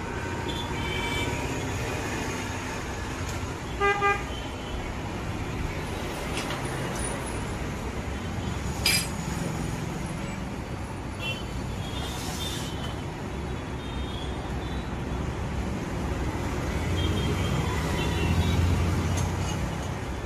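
Road traffic going past, with a short loud vehicle horn toot about four seconds in and fainter toots now and then; a vehicle's engine rumble swells near the end. A single sharp click about nine seconds in.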